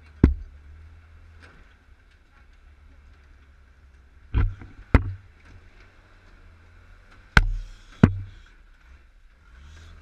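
Dodge M37 flathead straight-six running with a steady low hum, broken by five sharp knocks: one just after the start, two close together about four and a half to five seconds in, and two more around seven and a half to eight seconds.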